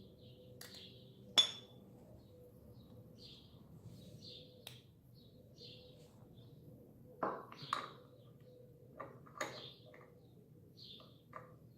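Metal brake parts and hand tools clinking and knocking during a motorcycle front brake pad job. One sharp ringing clink comes about a second in, and a cluster of knocks follows over the second half. A small bird chirps repeatedly in the background.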